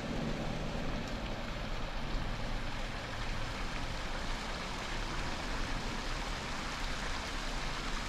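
Steady rushing of a flowing stream, an even wash of water noise with no distinct splashes.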